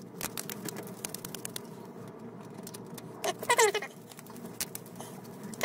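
Irregular small metallic clicks and ticks from a 5/16 nut driver turning the screw of a worm-drive hose clamp on a water pump hose. A little past halfway, a short squeaky sound falling in pitch cuts in over the clicks.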